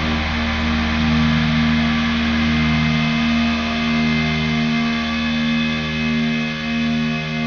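Shoegaze rock song's outro: sustained, effects-laden electric guitar drone without drums, low notes held and swelling gently.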